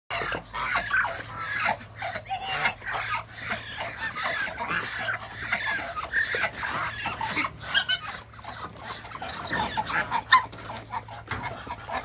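A backyard flock of poultry calling: a steady chatter of many short, overlapping calls, with two sharp clicks a few seconds apart in the second half.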